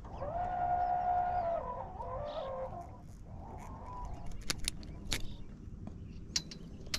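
A drawn-out pitched call that holds steady, then wavers and drops after about a second and a half, followed by a shorter call. Then a run of sharp metal clicks from hemostat forceps working a pink jig hook out of a crappie's mouth.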